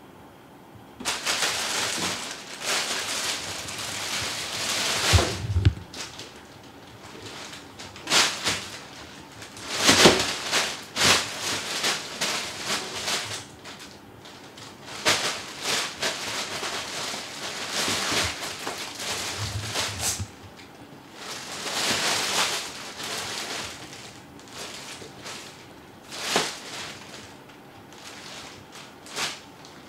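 Large thin plastic bag from a toilet-paper multipack crinkling and rustling in irregular bursts, some sharp and some drawn out, as cats move in and around it.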